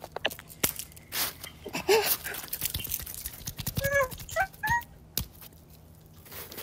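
A man's short yelps at the cold, mixed with crunching and patting of snow as he flaps about in it.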